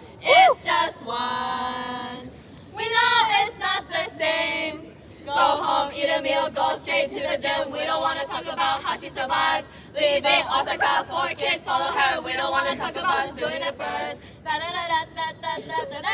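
A group of women singing together without instruments, in short phrases with brief pauses between them.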